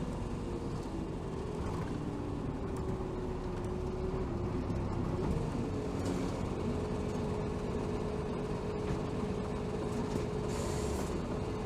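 Hino Rainbow HR (BDG-HR7JPBE) city bus running along the road, heard from inside the cabin. A whining tone dips in pitch for a few seconds, then holds steady about halfway through, with a short hiss near the end.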